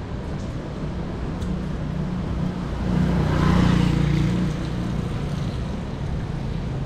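City street traffic noise on wet roads, with a vehicle passing close by about three seconds in: its engine hum and tyre hiss swell for about a second and a half and then fade.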